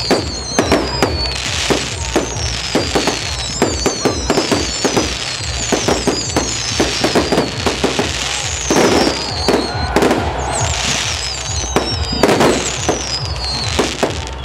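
Fireworks display going off: a rapid, irregular barrage of bangs, pops and crackle from bursting shells, with repeated high whistles falling in pitch.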